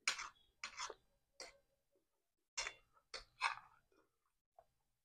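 Metal cutlery scraping and clinking on a ceramic plate as rice is scooped up, in about seven short, sharp strokes: a cluster in the first second and a half and another from about two and a half seconds in.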